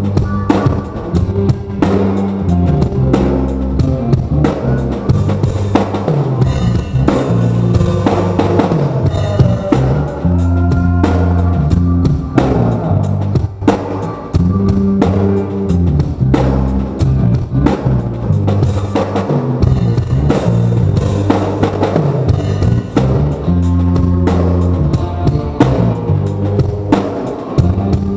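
Rock band playing live: a drum kit with kick and snare hits keeping a steady beat under bass and electric guitar.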